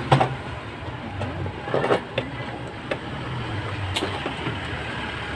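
Scattered short clicks and knocks of wires and a circuit board being handled inside an opened CRT television, over a steady low background rumble.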